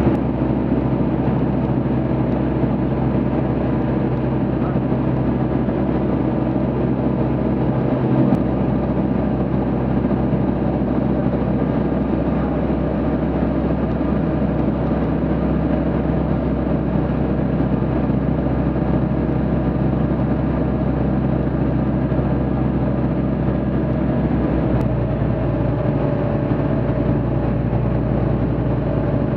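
Light aircraft's engine and propeller droning steadily in flight, heard from inside the cockpit; the engine note shifts slightly near the end.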